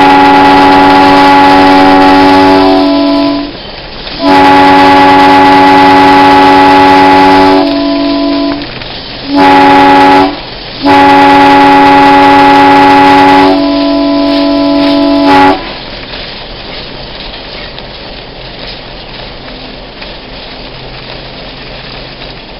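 The train's diesel locomotive air horn, an Alco S1's, blows the grade-crossing signal: two long blasts, a short one, then a final long blast, each a loud steady chord of several notes. After the horn stops, the train runs on with a steady rolling rumble.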